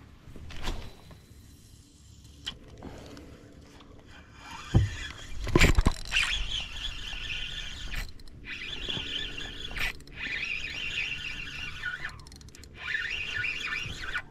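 Fishing reel being cranked to reel in a hooked bass, whirring in stretches with short pauses, after a couple of loud knocks about five seconds in.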